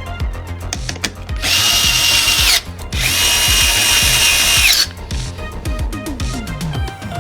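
Small electric screwdriver running in two bursts, one about a second long and then one of nearly two seconds, each with a steady high whine, as screws are driven during a PC assembly.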